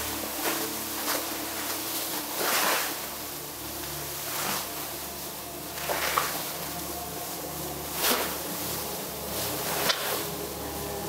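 A large translucent sheet swung up and down through the air, making repeated whooshing swishes about every one and a half to two seconds, over a faint steady low drone.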